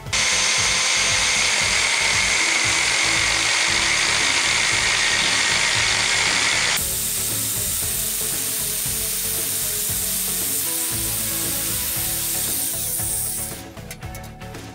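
Angle grinder with an abrasive cut-off disc cutting through steel pipe, running steadily under load. The sound shifts abruptly about halfway through and stops shortly before the end.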